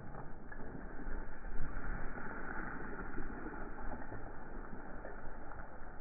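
A slab of quarry rock and soil collapsing and sliding down the face after a JCB 3CX backhoe has pushed it over. It is a rough, noisy rumble that grows louder about a second in and eases off after a few seconds, over the running machine.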